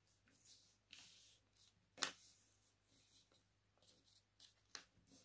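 Faint rustling and crinkling of a sheet of paper being folded and pressed flat by hand, with a few short sharp crackles, the loudest about two seconds in.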